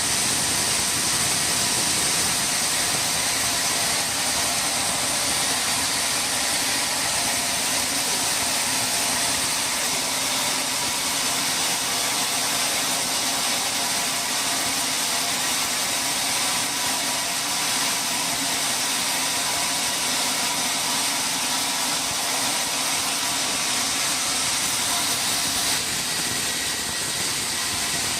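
Sawmill machinery running steadily: a constant high hiss with a faint hum underneath, with no breaks or changes in load.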